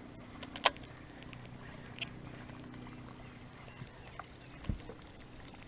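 Baitcasting rod and reel handled through a cast: a sharp click about half a second in, then scattered lighter clicks and a dull knock near the end, over a faint steady hum that fades out partway through.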